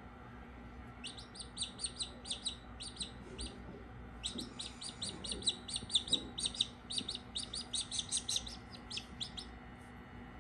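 Australorp chick peeping: quick runs of short, high peeps that start about a second in, pause briefly near the middle, then carry on until shortly before the end.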